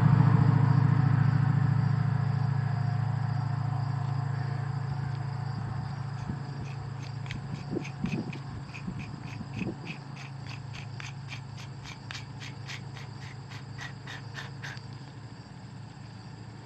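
A hand-spun keyed half-inch drill chuck on an SDS Plus adapter, coasting with a steady low hum that fades away over several seconds. About six seconds in, a run of light, even ticks begins at roughly three a second and stops a couple of seconds before the end.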